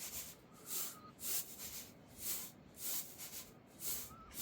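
Repeated rough, hissing scraping strokes, about one every two-thirds of a second to a second.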